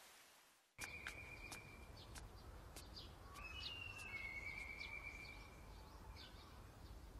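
Rain hiss fades out in the first second, then a faint outdoor ambience of birds calling takes over: quick chirps and a few long, high whistles, one of them gliding slightly downward.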